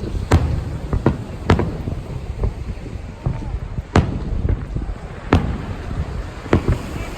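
Aerial fireworks shells bursting, about nine sharp booms at irregular intervals a second or so apart, over a continuous low rumble of the display.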